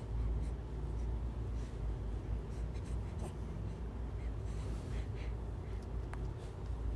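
Soft, scratchy rustling and handling noise over a steady low rumble, with no clear voice or cry.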